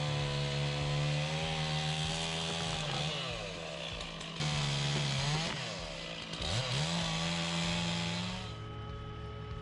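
Chainsaw running at high revs, its pitch dipping twice as it loads up in cuts, then dropping back to a lower idle near the end.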